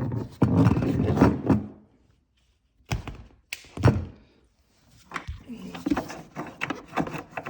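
Knocks, thunks and scraping of a snowmobile fuel tank being worked loose and lifted out of the chassis, with several sharp knocks near the middle and a brief silent gap.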